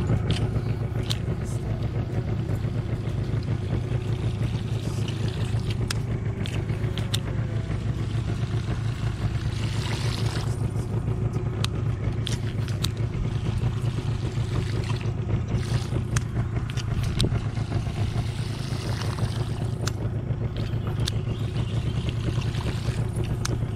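Small boat's engine running steadily at low revs, with scattered sharp clicks over it.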